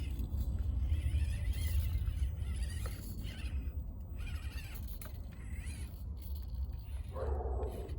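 Outdoor background with a steady low rumble of wind on the microphone and birds calling; a louder, harsher call comes near the end.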